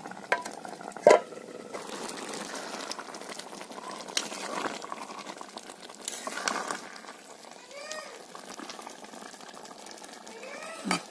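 Fish curry bubbling in an iron kadai, with a steel lid knocking against the pan rim about a second in, then a steel spatula scraping and stirring in the pan. Two short rising-and-falling calls come near the end.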